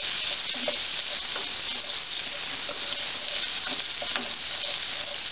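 Butter and oil sizzling steadily in a pan as the butter melts, stirred with a few light clicks of the spoon.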